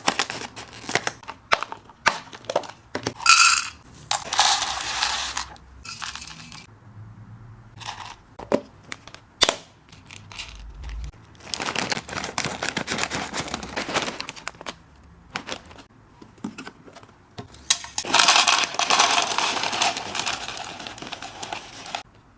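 Dry hamster snacks being handled and poured: many small clicks and rattles, with three longer pouring, rustling spells, the last and loudest near the end.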